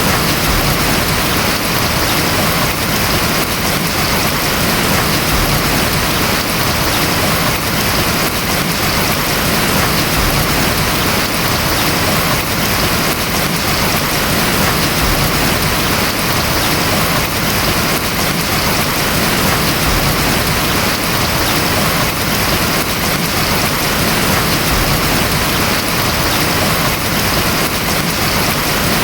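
Steady, heavy rain falling on a house roof, a dense even patter.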